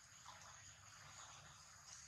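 Near silence: faint outdoor ambience with a steady, high-pitched insect drone.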